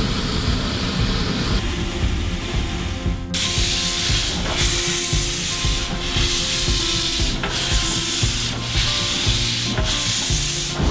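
Steam hissing from the narrow-gauge steam locomotive of La Trochita, the Old Patagonian Express, as steam blows out around its cylinders and wheels. The hiss grows much brighter about three seconds in and then changes abruptly several times.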